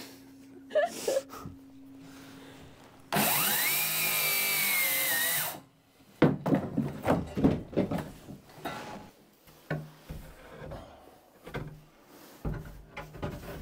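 Ryobi circular saw spinning up and cutting through marine plywood for about two and a half seconds, its whine rising as the blade comes up to speed, then stopping. Knocks and clatter of boards being handled follow.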